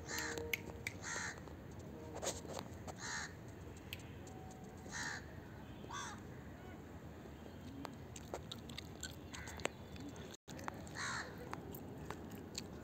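Crows cawing: a series of short, harsh caws, about six in the first six seconds and another about eleven seconds in.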